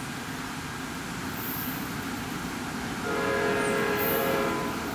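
Nathan K5LA five-chime air horn on an NJ Transit ALP-46 electric locomotive sounding one blast of about a second and a half, starting about three seconds in, over the steady rumble of the approaching train.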